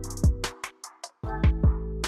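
Background music with a beat of deep kick drums that drop in pitch, sharp high hits and held bass and chord notes. The beat and bass cut out for about half a second shortly after the start, then come back.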